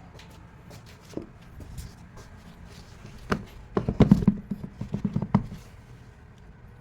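Scattered clicks and knocks of a new car battery being handled and set into place, with a cluster of louder clunks about four to five seconds in.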